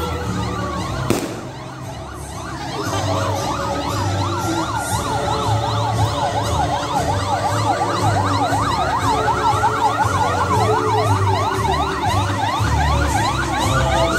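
Emergency-vehicle siren: a slow rising-and-falling wail, joined about two and a half seconds in by a fast yelp that sweeps up and down several times a second. There is a short knock about a second in.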